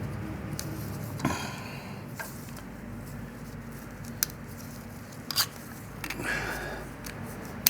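Hands handling small driveshaft parts: a few sharp metal clicks and taps with soft rustling and scraping between them, over a low steady hum.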